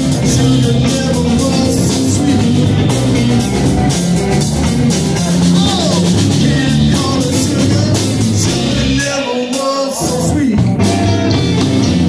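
Live rock band playing electric guitars over drum kit and bass. The drums and low end drop out for about a second near the end before the band comes back in.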